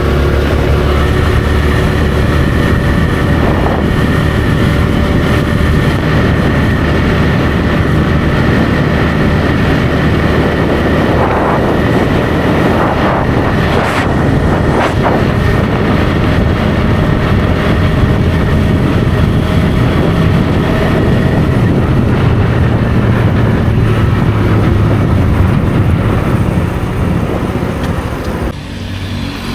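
TVS Raider's 125 cc single-cylinder engine running steadily under way through its stock exhaust, with road noise. The engine note and loudness drop briefly near the end.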